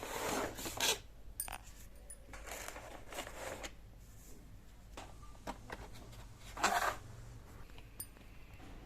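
Keyboard packaging being handled and opened: a few short bursts of rustling and scraping, the loudest at the start and about seven seconds in, with small clicks between them.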